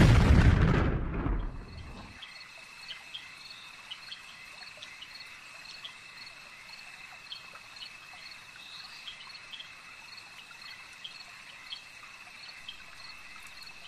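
Night-time cricket ambience: a faint steady high trill with scattered short chirps. It opens with a loud rushing burst that fades away over about two seconds.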